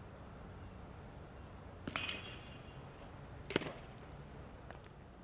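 Aluminum baseball bat striking a pitched ball, a ringing metallic ping about two seconds in, followed a second and a half later by a single short, sharp crack.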